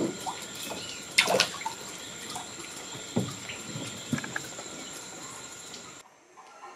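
Water splashing and dripping in a plastic tub as a baby Podocnemis river turtle is set into it: a few short splashes, the loudest about a second in, over a steady high whine. The sound drops away about six seconds in.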